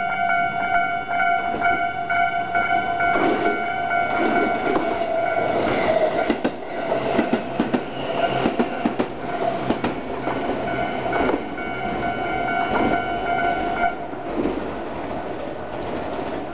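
Japanese level-crossing electronic warning bell ringing in its standard tone, a rapid repeating ding, while a Tobu Isesaki Line train passes with wheels clacking over the rail joints. The bell stops a couple of seconds before the end and the train noise carries on more quietly.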